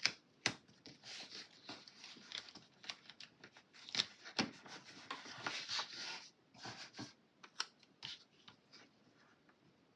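Paper planner stickers and their sheet being handled: irregular crinkly rustles, peeling and small taps as pieces are lifted and pressed onto a planner page, dying down in the last couple of seconds.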